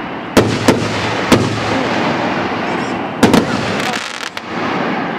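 Consumer fireworks cake firing aerial shells: a string of sharp booming reports, three in the first second and a half and a close pair a little past three seconds, with a steady hiss between them.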